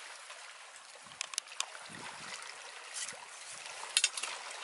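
Nylon gill net and its plastic floats being handled as fish are picked out: faint rustling with scattered light clicks, a small cluster of them near the end, over a steady low hiss.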